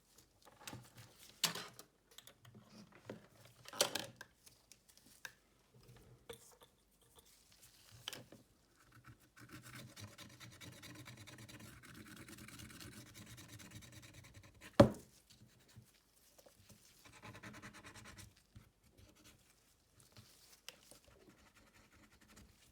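Scratching and rubbing of tools and hands working on a smartphone's back, in short scattered strokes, with a steadier stretch of rubbing in the middle and one sharp click about fifteen seconds in.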